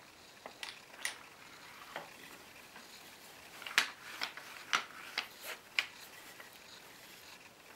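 Irregular light wooden knocks and clicks as an antique wooden plough plane is handled, set down on a wooden workbench and turned over; the sharpest clicks come in a cluster about four to six seconds in.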